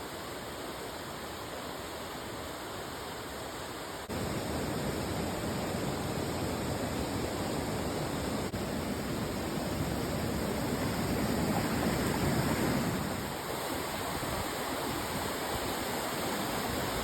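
Waterfall: a steady rush of falling water, which turns louder about four seconds in and swells briefly around twelve seconds.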